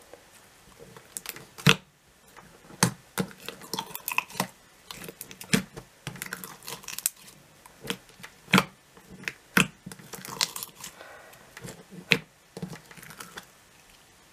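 Slime being mixed by hand in a plastic jar, with blue glitter and clay being worked into white slime: irregular sticky clicks and pops as it is stretched, folded and pressed.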